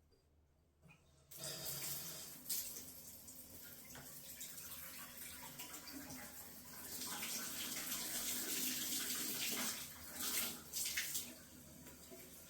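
Hot water running into a bathtub from the bare tub spout pipe, the tub diverter removed; it starts about a second in and runs louder for a few seconds in the middle. The hot flow is weaker than the cold, which is put down most likely to the tankless water heater.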